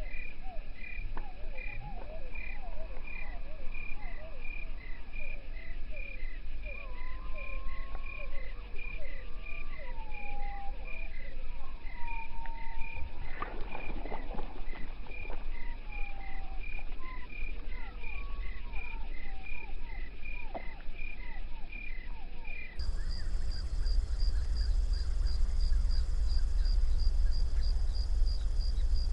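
Frogs calling in short gliding croaks over a steady insect chirp of about two pulses a second at a lily-pad pond. About halfway through there is a splash as a bird strikes at the water. Near the end the sound cuts to a higher insect chirp over a low rumble.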